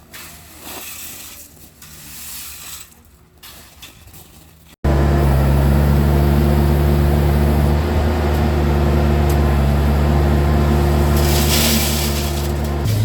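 Vermeer mini skid steer engine running steadily, heard faintly at first, then loud and close after a sudden cut about five seconds in. A brief rush of noise sounds over it near the end.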